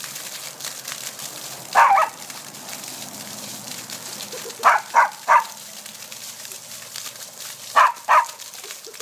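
Whippet puppy barking sharply at a sprinkler's water spray: seven barks in three quick bursts, two about two seconds in, three around the middle and two near the end, over the steady hiss of the spraying water.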